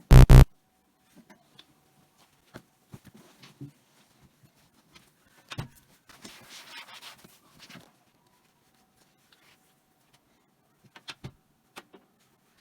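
Drawer-organising handling sounds: a single loud clack at the very start, then scattered light taps and clicks, a soft rustle of handled fabric about six seconds in, and a few more clicks near the end.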